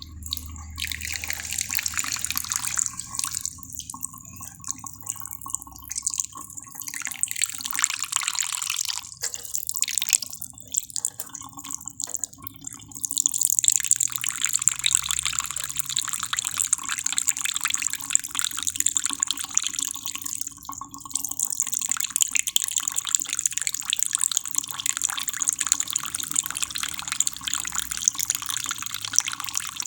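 Running water trickling and splashing steadily, its sound growing fuller about halfway through.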